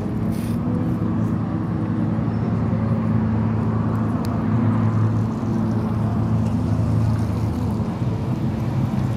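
Boat engine running steadily with a low, even hum, over a wash of water and wind noise.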